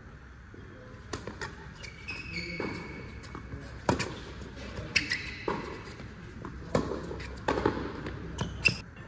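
Tennis rally: balls struck by racquets and bouncing on a hard court, an irregular run of sharp pops about every second, with a few short high squeaks.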